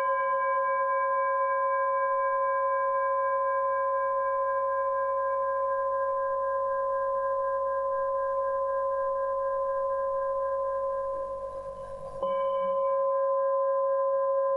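Tibetan singing bowl, held on the palm, ringing after a strike: a deep steady tone with a higher ring above it. It fades a little, then is struck again about twelve seconds in and rings on.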